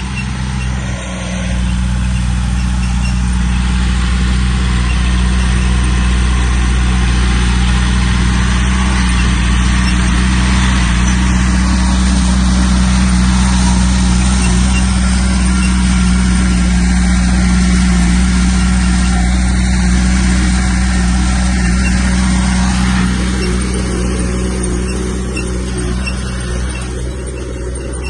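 Heavy earthmoving machine's diesel engine running steadily under load. It gets louder about a second and a half in and eases off near the end.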